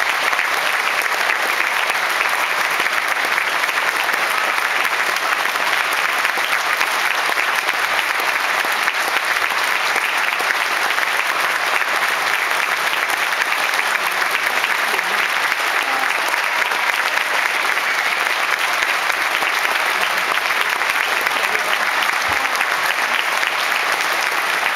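Theatre audience applauding a curtain call: dense, steady clapping that holds at one level without a break.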